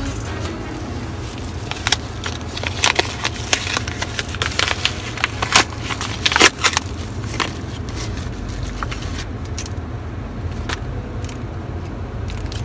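A plastic package being torn open and handled, with irregular crinkling and crackling that thins out after about nine seconds, over a steady low rumble.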